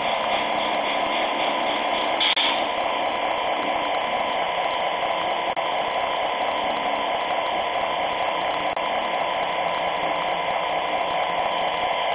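Lenz V36 model diesel locomotive running slowly along the track with a lit coach: a steady whirring hiss with a faint even hum, with a brief louder click about two seconds in.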